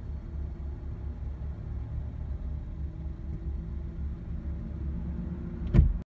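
The turbocharged four-cylinder engine of a 2003 Audi TT idling with a low, pulsing rumble, the car stopped in neutral after blowing an intercooler hose. A single loud thump comes near the end.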